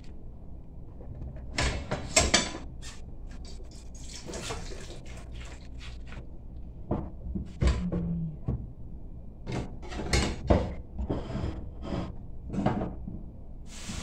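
Pots and kitchenware being moved and set down on the counter and stove: a string of irregular knocks and clatters, with the loudest knocks about two seconds in and again near ten seconds.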